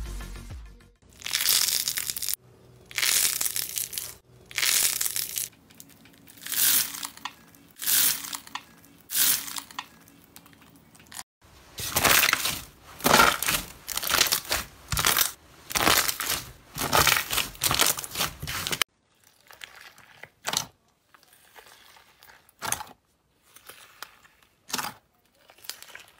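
Glossy slime squeezed and pressed by hand, giving wet squelching, popping and crackling in repeated bursts about once a second, then a denser run. After about 19 s the sounds turn quieter and sparser, small crackles as a hand pokes into slime packed with foam cubes.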